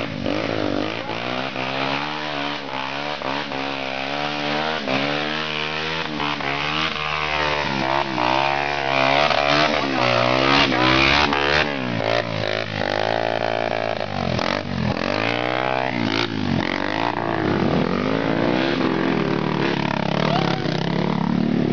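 Trail motorcycle engines revving up and easing off over and over, pitch rising and falling every second or so. In the middle, more than one engine is heard at once.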